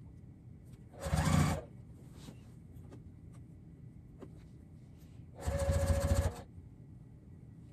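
Electric sewing machine running in two short bursts, the first about half a second long and the second about a second long near the end, stitching a seam through a bulky stuffed shirt. Faint clicks and fabric handling come in the pause between.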